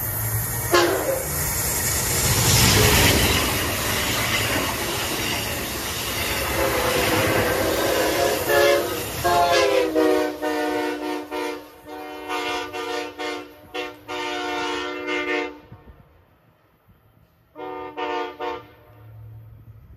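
Amtrak Acela train rushing past at speed, then its rear power car sounding a horn show: a chord horn in a string of short and longer blasts, a brief pause, and one last blast near the end.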